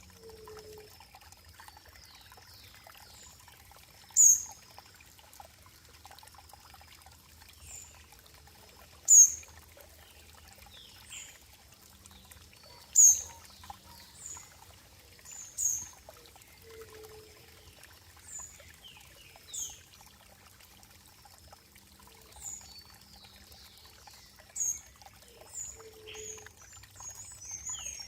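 Water trickling and pouring faintly and steadily, while a bird gives short, sharp, high chirps every few seconds, the loudest about a third of the way in and near the middle.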